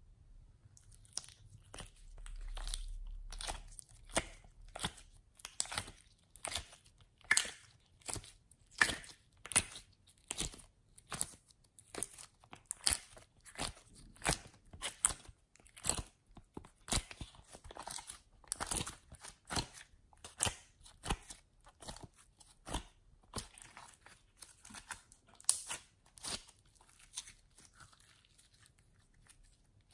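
Hands squeezing and stretching soft slime, making repeated sharp, wet clicks and pops, about two a second.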